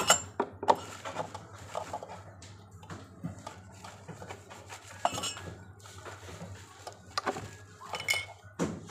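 Hard moulded plastic high-chair seat shell being handled and turned over, giving scattered sharp plastic knocks and clicks with rustling handling noise in between.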